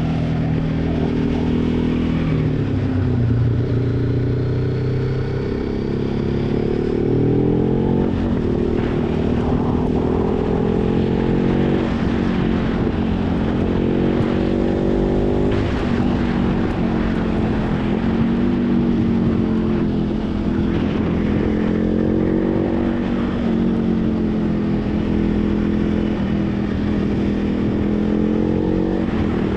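Motorcycle engine running while riding, its revs repeatedly rising and falling with throttle changes and gear shifts.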